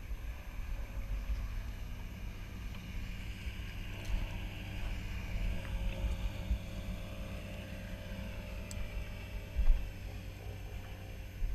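Wind rumbling on the microphone and water moving around a small aluminium boat drifting on choppy water, with a faint steady hum through the middle. There is one sharp thump near the end.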